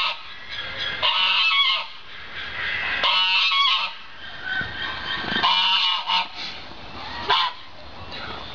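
Red fox calling in short bursts, about four of them, roughly two seconds apart.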